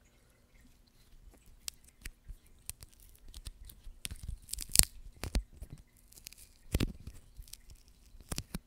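A roll of blue painter's tape being picked at and peeled right against a microphone: irregular crackles and sharp tearing snaps, loudest about four and a half seconds in and again near seven seconds.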